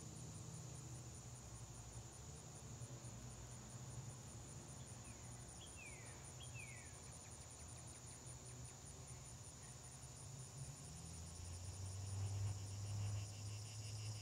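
Steady high-pitched chorus of insects with a fast, even pulse. A few short falling bird chirps come about five to seven seconds in, and a low hum grows louder near the end.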